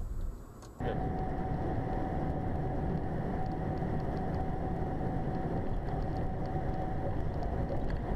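Steady driving noise of a moving car heard from inside: engine and road hum with a faint steady whine. It starts abruptly about a second in, after a brief drop in level.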